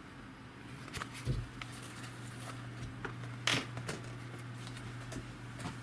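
Handling noise as a camcorder is lifted out of its padded fabric carrying case: scattered soft knocks and rustles, the sharpest a knock about three and a half seconds in. A steady low hum runs underneath.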